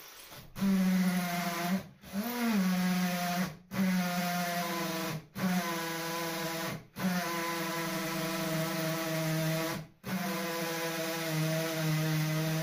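Cordless drill/driver motor running, started and stopped six times in runs of one to three seconds with only a brief gap between each. Its pitch rises briefly a couple of seconds in.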